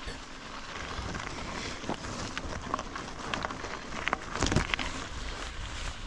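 Bicycle moving up a climb: a steady noisy crunch and rattle of the tyres and bike, with wind on the microphone and a louder clunk about four and a half seconds in.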